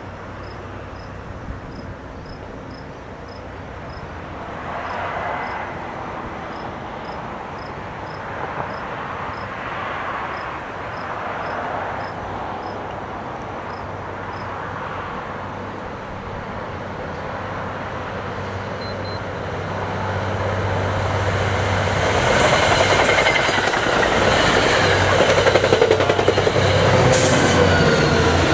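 Diesel commuter train approaching on the tracks: a low engine hum and the rumble of wheels on rail, growing steadily louder over the last several seconds as it draws near.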